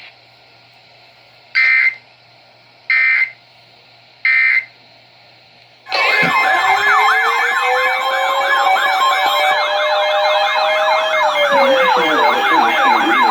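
Emergency Alert System data bursts: three short digital chirps about 1.4 s apart, the end-of-message code closing the previous warning. About six seconds in, a loud siren-like alert tone starts. It has fast repeating up-and-down sweeps over steady tones, with a slower wail that rises and then falls.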